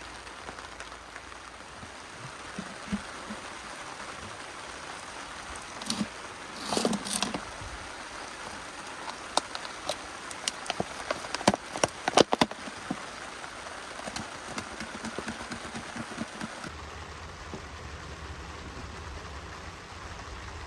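Steady rain falling on a surface, with scattered sharp clicks and knocks, the loudest about 11 to 12 seconds in.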